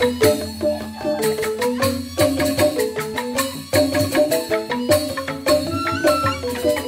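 Balinese joged bumbung gamelan: bamboo xylophones playing a fast, running melody of quickly struck notes, with sharp percussion strokes over it.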